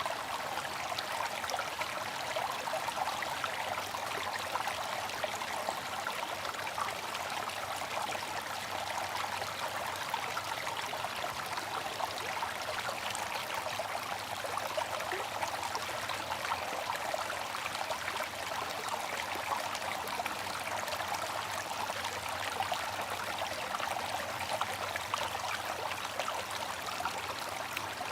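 Bamboo water fountain running: a steady, even rush of falling water with no breaks.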